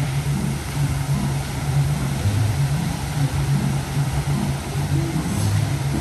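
Water-show soundtrack music carried by a low bass line that steps between notes, over a steady hiss of spraying fountains.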